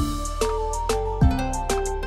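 Background music: held melodic notes over a deep drum beat that hits about every second and a quarter.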